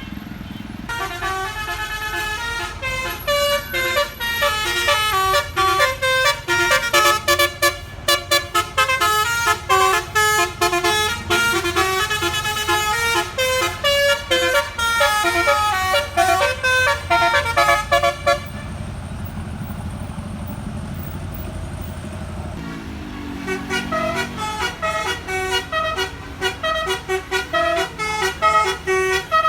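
Bus 'basuri' telolet musical air horn playing a fast tune of changing notes, with a vehicle engine rumbling underneath. The tune stops about two-thirds of the way through, leaving a few seconds of engine noise, then starts again.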